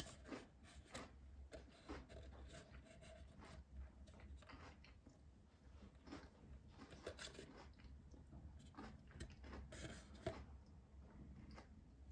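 Faint, scattered clicks and crackles from handling a thin plastic tray of molded character chocolate as pieces are picked out.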